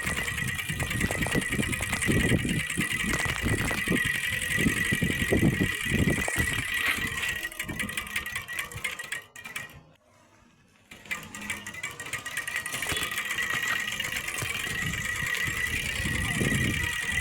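Plastic strip fixed so that the spokes of a turning bicycle wheel flick it, making a rapid clicking buzz like a small motor. It fades away about nine seconds in, stops for about a second, then picks up again.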